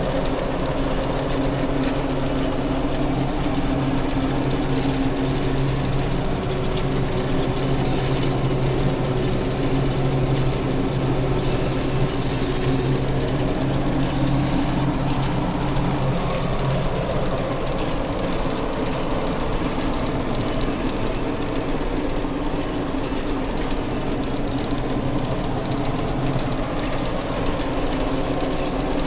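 Fortschritt E 514 combine harvester heard from inside its cab while harvesting grain: the engine and threshing machinery run with a steady drone and a constant rattle.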